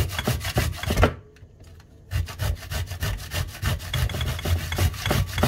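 Fresh coconut flesh being grated on a stainless steel box grater: quick, rhythmic rasping strokes, about four or five a second, with a break of about a second shortly after the start before the strokes resume.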